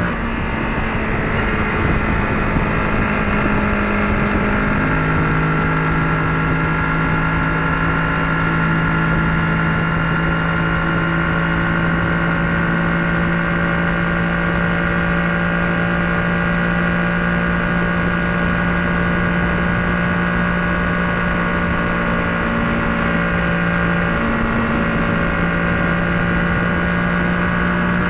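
Kawasaki Ninja 650's parallel-twin engine running at a steady highway cruise, its note holding almost unchanged, over steady wind and road noise.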